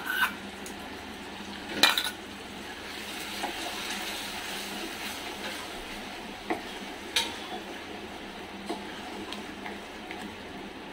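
Ginger, garlic and chilli paste sizzling in hot oil in a pan while a wooden spatula stirs it. A few sharp metal clinks, the loudest about two seconds in, come from a steel spoon scraping the last paste out of a steel bowl.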